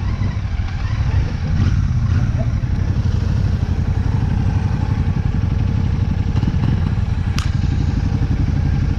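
Royal Enfield Shotgun 650's parallel-twin engine running steadily under way, with a sharp click about seven and a half seconds in.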